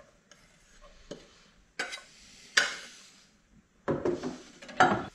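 A few separate knocks and scrapes of a wooden cutting board and knife against a pot and the counter as chopped onion and garlic are tipped into the pot and the board is set aside. The loudest knock comes about two and a half seconds in, with a short cluster of clatters near the end.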